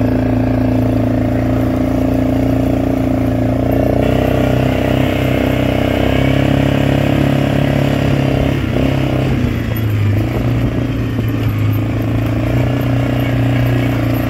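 ATV engine running steadily while being ridden, its pitch stepping up a few seconds in and dipping briefly near the middle as the throttle is eased and reopened.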